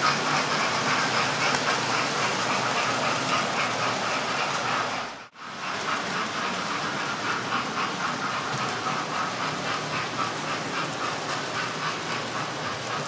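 Model railway locomotives running on the layout track: a steady electric-motor whirr with fast rhythmic clicking of wheels over the rails. The sound briefly cuts out about five seconds in, then carries on.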